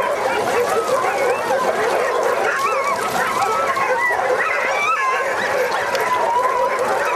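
Many sled dogs barking, yipping and whining at once in a dense, unbroken din, with wavering whines and howls rising above it.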